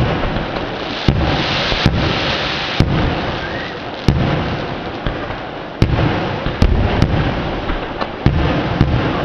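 Aerial fireworks shells bursting in quick succession, about nine sharp bangs each trailed by a low echoing rumble, with a brief crackling hiss about two seconds in.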